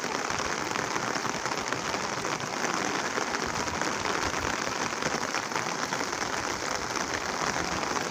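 Steady, even hiss of heavy rain and a rushing flooded stream, with no breaks.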